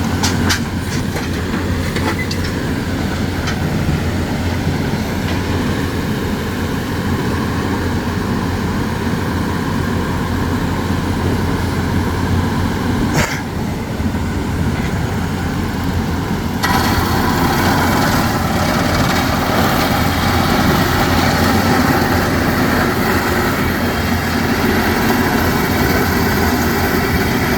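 Heavy hydraulic construction machinery running steadily at a rock excavation, with a low hum and a few sharp knocks, one about 13 seconds in. About 17 seconds in the noise turns abruptly harsher and brighter.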